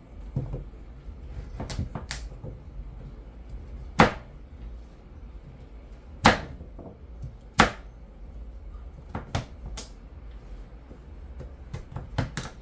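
Irregular sharp knocks and clatter of kitchen utensils and cookware being handled during food preparation, the three loudest knocks coming about four, six and seven and a half seconds in, over a low steady hum.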